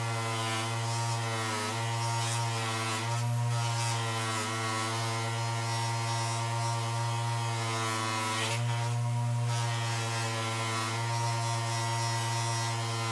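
Electric motor of a power tool running steadily with a hum, its pitch dipping briefly a few times.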